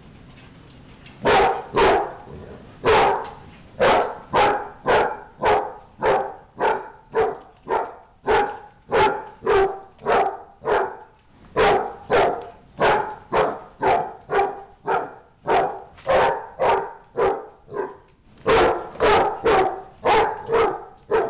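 A tricolour hound barking over and over, about two barks a second, after a short lull at the start. It is barking at two bigger dogs wrestling in play.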